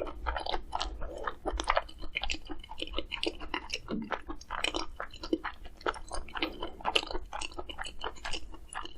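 A person chewing and biting food close to the microphone, with many quick, irregular crisp crunches.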